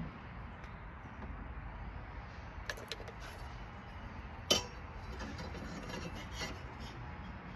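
A few light clinks, then one sharper knock about four and a half seconds in, over a low steady background.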